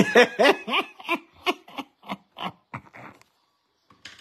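A man laughing: a run of short, evenly spaced "ha" bursts that weaken and trail off after about three seconds.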